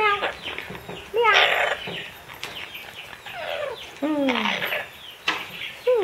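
Amazon parrot calling: a run of several separate squawks and gliding calls, mostly falling in pitch, some harsh and raspy.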